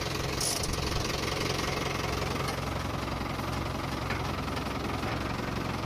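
Tractor diesel engine running steadily, with a tractor-mounted hydraulic tree shaker attached.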